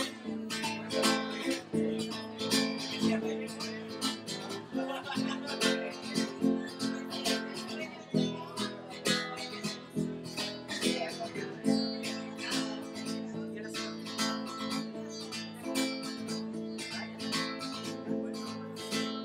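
Acoustic guitar strummed in a steady rhythm, an instrumental passage without singing.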